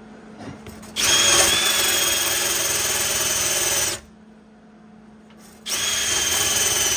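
A handheld power tool cleaning the metal around a broken stud to bare metal before welding. It runs twice, first for about three seconds and then again from near the end, each time with a high steady whine that settles slightly lower in pitch, over a harsh scrubbing hiss.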